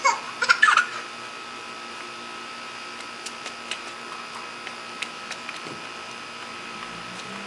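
A small child's brief high squeal with pitch glides in the first second. After it comes a faint steady hum with a constant tone and scattered light clicks.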